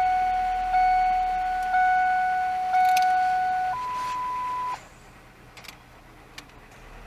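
The pickup's electronic dashboard warning chime sounds four times about a second apart, each tone fading. It is followed by one higher, steady beep lasting about a second that cuts off about five seconds in.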